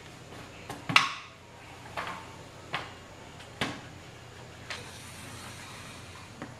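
Wooden knocks and clatter as a wooden folding dish rack is opened out and set down on the counter: one loud knock about a second in, then several lighter knocks roughly a second apart. Near the end comes a soft scrape as a small wooden tray is slid across the counter.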